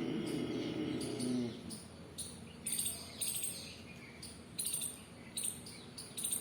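A drawn-out throaty breath sound of ujjayi pranayama, the breath pulled in while the throat is sounded, ends about a second and a half in. Small birds then chirp repeatedly in short high calls, roughly every half second.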